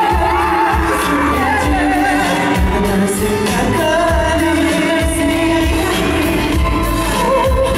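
A male singer singing a K-pop song live into a handheld microphone over a backing track with deep bass, heard through a concert hall's sound system.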